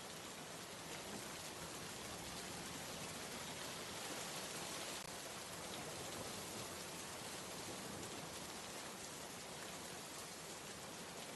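Steady rain falling, an even hiss of many drops with no thunder or other events.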